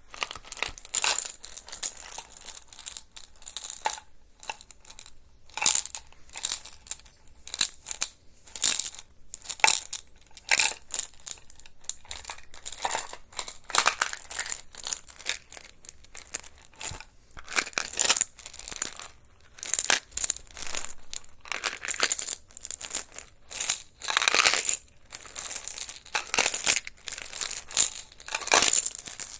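ASMR trigger sounds: irregular crisp clicks and crackles, several a second, bright and sharp.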